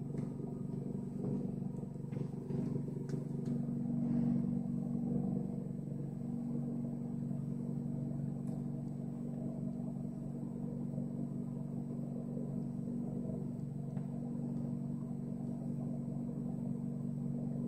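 A steady low mechanical drone, unchanging throughout, like a motor or engine running.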